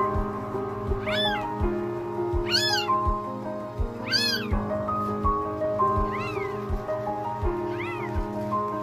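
Cat meowing in short, high-pitched, arching calls about every second and a half, the last three fainter, over background music with a melody and a steady beat.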